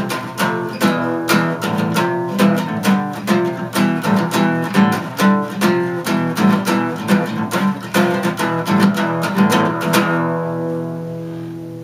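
Solo acoustic guitar strummed in quick, rhythmic chord strokes. About ten seconds in the strumming stops and a final chord is left ringing, slowly fading.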